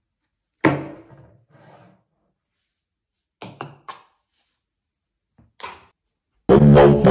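Plastic drink bottles knocking and landing on a wooden table and a small plastic cup during bottle flips: one sharp thunk about half a second in, a softer knock, a quick cluster of clicks around three and a half seconds in, and another knock past five seconds. A loud burst of music starts near the end.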